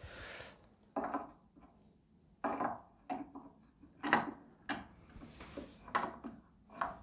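Hard resin statue parts being handled and tried against a base: about eight separate light knocks and scrapes, with a brief hissing rub near the start and again just after the middle.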